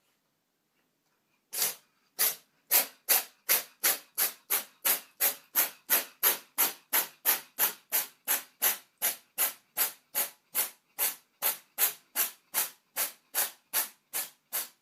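An animal's rapid, rhythmic breathy puffs, about three a second, beginning after a second and a half of silence and keeping an even pace throughout.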